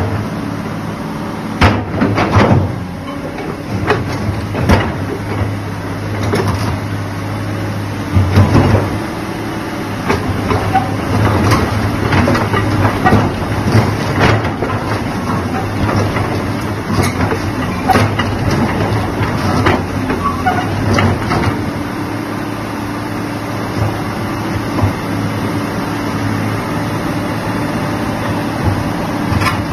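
Used Hitachi excavator's diesel engine running steadily, with repeated sharp metallic clanks and knocks from the machine working through most of the first twenty seconds, then running on evenly.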